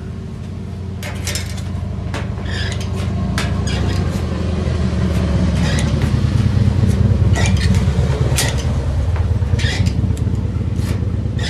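Hand shears snipping thin aluminum trailer siding: a series of short, sharp metal snips, roughly one a second, irregularly spaced. Under them runs a steady low rumble that grows louder toward the middle.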